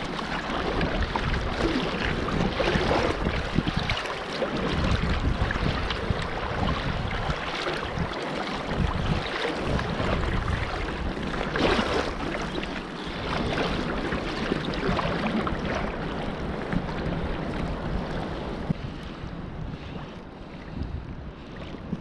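Wind buffeting the microphone over sloshing sea water, with gusts coming and going.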